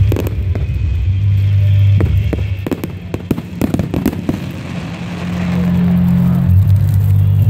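Aerial fireworks going off: a quick run of bangs and crackles over the first half, thinning out after, above a low steady drone.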